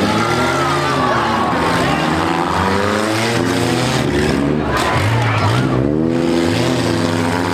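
Several compact-car engines revving up and down at once, their pitches rising and falling over one another, as in a demolition derby heat.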